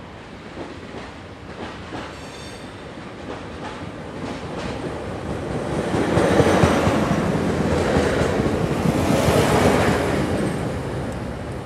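Koleje Dolnośląskie multiple-unit passenger train approaching and passing close by, with wheel clatter on the rails. It grows louder from about four seconds in, is loudest for about four seconds as the cars go past, then fades.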